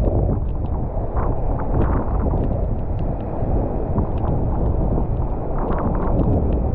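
Strong wind buffeting an action camera's microphone over rough surf: a loud, steady rumble with scattered faint clicks.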